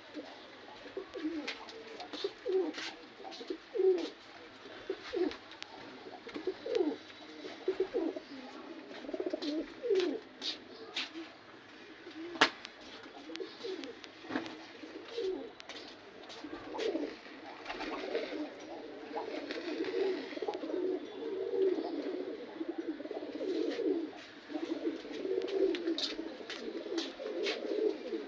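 Domestic pigeons cooing steadily, several calls overlapping, with scattered sharp clicks and taps among them.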